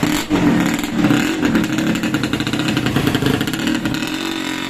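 Yamaha RX-King's 135cc single-cylinder two-stroke engine running after a rebuild, revved up and down several times, its pitch rising and falling.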